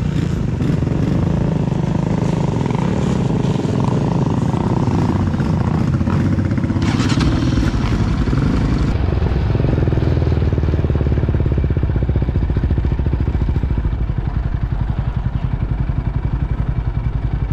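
ATV engine running steadily, its firing pulses heard as an even rapid throb, with a short rush of noise about seven seconds in.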